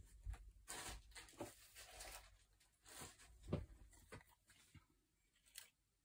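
Soft, irregular rustling and crinkling of dried leaves and plant specimens being sorted by hand in a box, with a few small knocks.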